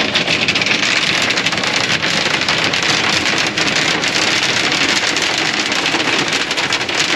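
Hail and rain pelting the combine cab, heard from inside: a dense steady patter with many sharp ticks of small hailstones.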